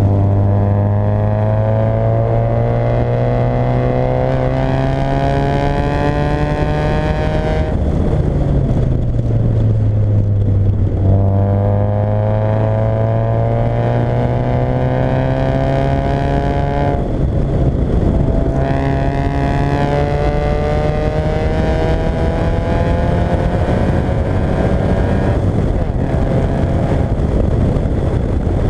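Fiat Coupé 1.8 16v four-cylinder engine accelerating hard through the gears: its pitch rises in three long pulls, dropping at each gear change, then holds steadier near the end as the driver eases off.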